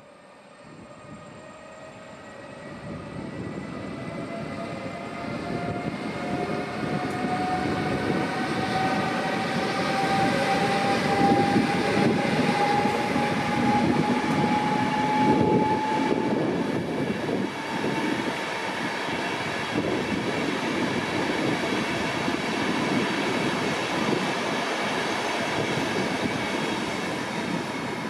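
ÖBB Taurus class 1216 electric locomotive pulling away with a passenger train: a smoothly rising whine from its traction electrics over the growing rumble of wheels on the rails. The whine fades out about halfway through, leaving the coaches rolling past on the track.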